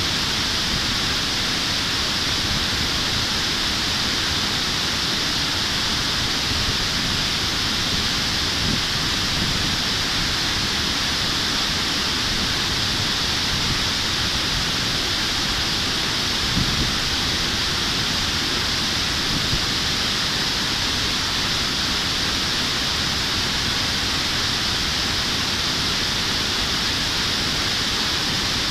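Water pouring over a low concrete weir into a stream: a steady, unbroken rushing.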